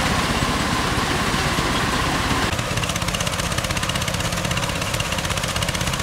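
A small engine running steadily with a fast, even pulse. Its note shifts about two and a half seconds in.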